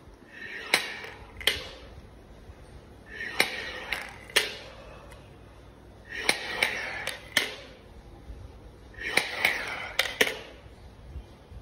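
Four hard breaths drawn through a three-ball incentive spirometer, each a rush of air about a second long, roughly every three seconds. Sharp clicks of the plastic balls knock in their tubes as each breath lifts them and lets them fall back.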